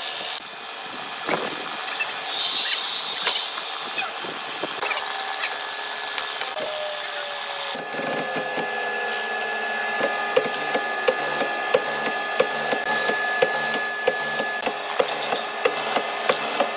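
A woodworking tool scraping steadily on hardwood. After an abrupt change about eight seconds in, a run of regular sharp taps, about two a second, joins it.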